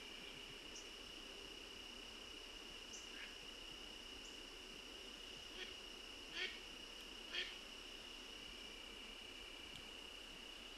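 Faint, steady chorus of crickets trilling at a high pitch. Over it come a few short sharp sounds, the two loudest about a second apart halfway through.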